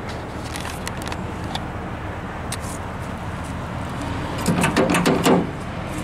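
2004 Chevy Silverado 2500 pickup's engine idling steadily, with scattered short crunching clicks of footsteps on gravel. A brief louder sound with a low tone comes about four and a half seconds in.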